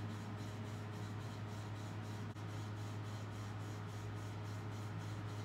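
Steady low hum with a faint even hiss: room tone, with one faint click a little over two seconds in.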